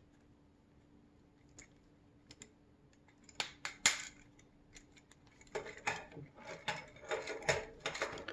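3D-printed plastic model parts clicking and clattering as they are handled and fitted together: a couple of sharp clicks about three and a half to four seconds in, then a busier run of clicks and rattles toward the end.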